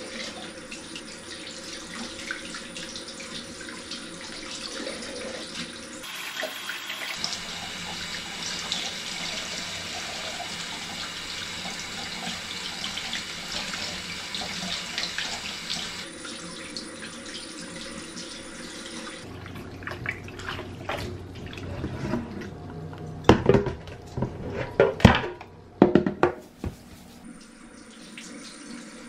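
Kitchen tap running into a stainless steel sink, splashing over raw chicken thighs as they are rinsed in a pan. In the last several seconds the running water eases and a run of sharp knocks and splashes, the loudest sounds here, breaks in.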